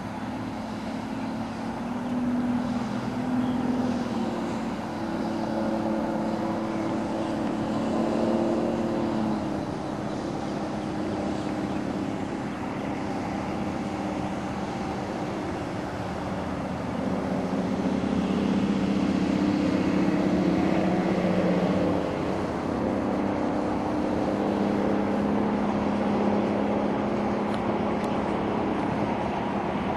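Mercury Verado four-stroke outboard running at speed, its engine note shifting up and down in pitch as the boat passes and turns.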